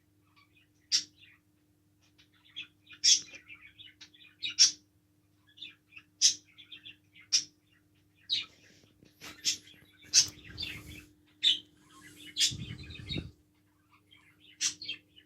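A bird chirping in short, sharp, high-pitched calls, roughly one a second, over a faint steady hum. Two brief low rumbles come about ten and twelve and a half seconds in.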